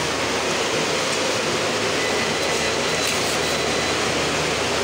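Steady, even rushing noise of equipment cooling fans running, with a faint thin high whine above it.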